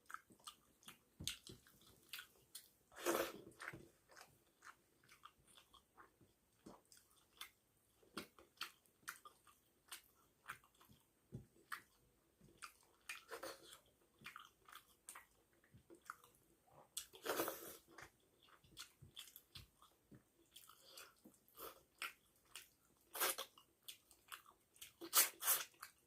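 Close-miked chewing of a mouthful of rice and fish curry: irregular wet mouth clicks and smacks, with a few louder crunchy bites about 3, 17 and 25 seconds in.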